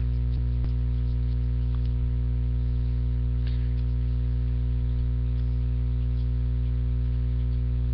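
Steady electrical mains hum with a stack of low tones, unchanging throughout. A few faint ticks come in the first second as trading cards are handled.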